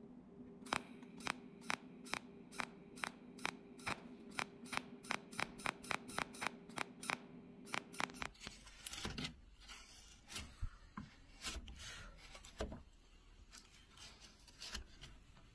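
A steady run of sharp clicks, about three to four a second, over a low steady hum. About eight seconds in it gives way abruptly to irregular crackling and rustling.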